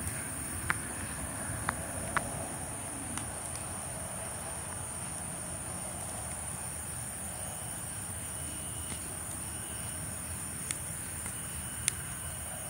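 A brush-pile fire of broken tree branches burning, with a handful of sharp pops and crackles from the wood, spread out and loudest near the end. Under it, a steady high-pitched insect chorus and a low, even rumble.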